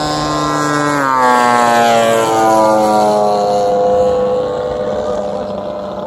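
Engines of giant-scale radio-control airplanes running in flight overhead. About a second in, their pitch drops steadily over a couple of seconds as a plane passes by, then holds lower.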